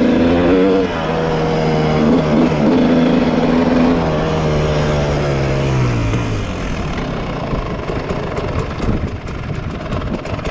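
2003 Kawasaki KX250's single-cylinder two-stroke engine running under riding, its pitch wavering, then falling away from about four seconds in as the bike slows to a stop. Near the end the engine drops to a rough, ticking idle.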